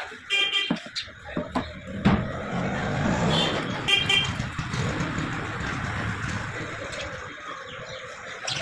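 Short vehicle horn toots, about three of them in the first half, over a steady rushing noise that comes up about two seconds in.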